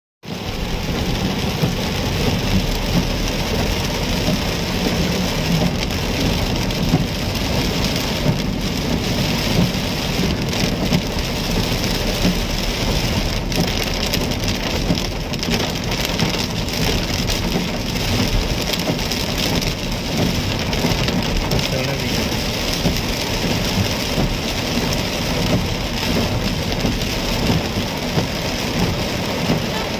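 Heavy rain falling on a car's roof and windshield, heard from inside the cabin: a dense, steady patter with a low rumble underneath.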